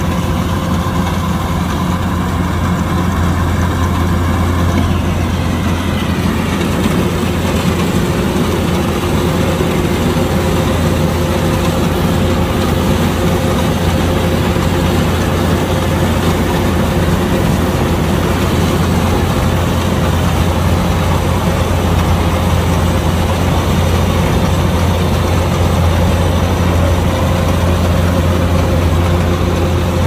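Kubota DC-105X combine harvester's diesel engine running steadily with a constant deep hum, and a faint higher whine that shifts in pitch during the first few seconds.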